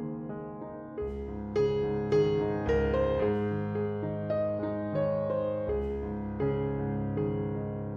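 Soft instrumental background music led by piano or electric piano, a slow melody of single notes over sustained low bass notes.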